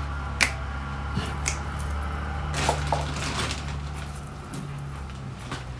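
Metal kitchen utensils clinking and rattling in short scattered knocks as a knife is fetched, over a steady low hum.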